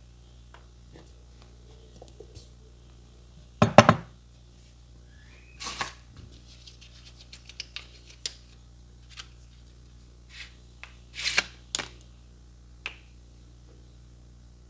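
Close-miked handling sounds of a barber's hands and tools working on a customer's face: scattered short clicks and brief rubbing strokes over a steady low hum. The loudest rub comes just under four seconds in, and another cluster comes a little past eleven seconds.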